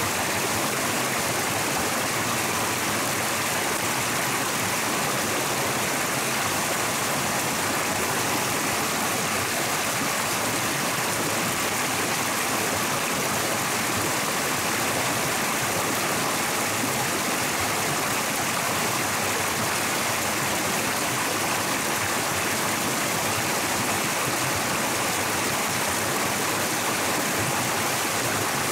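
Flowing stream water rushing steadily and evenly, with no breaks or changes.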